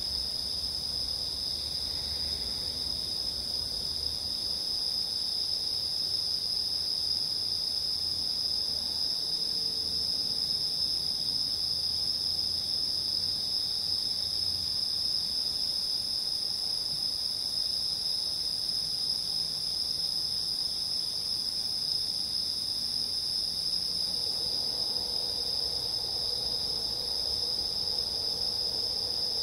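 Crickets and other insects singing in a steady, unbroken chorus: several constant high tones layered together.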